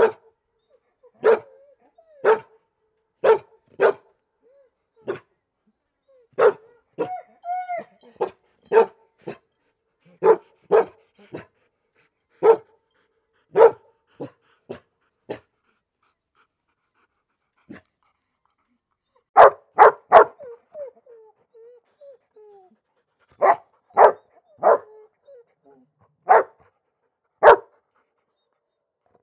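A dog barking in short, sharp single barks about a second apart, with a held whine about seven seconds in. After a short silence near the middle comes a quick run of barks, then soft whimpers and more single barks.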